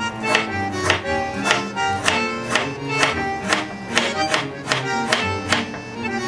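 Background music: a melody over a steady beat of about two strokes a second.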